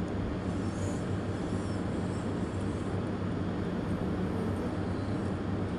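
Steady background hum and hiss: a constant low hum under an even noise, with no distinct events.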